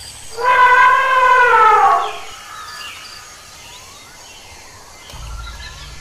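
An elephant trumpeting once, a loud call about two seconds long that slides down in pitch at the end. Quieter ambience with faint bird chirps follows.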